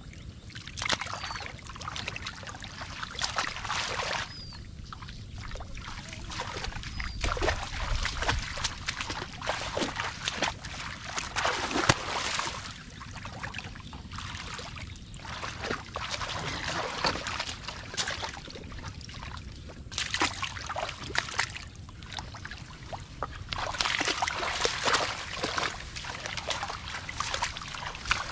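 Shallow muddy water splashing and sloshing as hands grab and wrestle a fish in it, in irregular bursts with sharp splashes, the sharpest about twelve seconds in.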